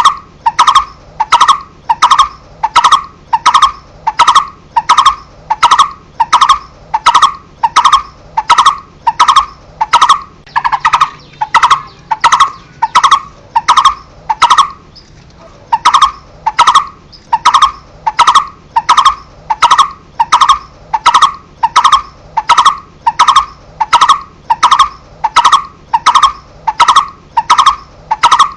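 A barbet (cu rốc) calling: a single hollow note around 1 kHz repeated evenly about one and a half times a second, with one brief pause about halfway through.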